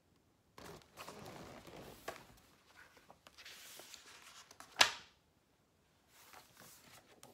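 Rustling and handling of a hardcover picture book and its pages, with one sharp knock about five seconds in, and lighter rustling near the end.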